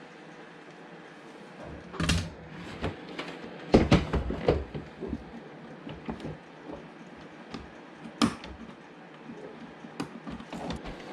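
Scattered clicks and knocks of hands and tools handling parts of a car door with its inner panel off, with a cluster of louder knocks about four seconds in.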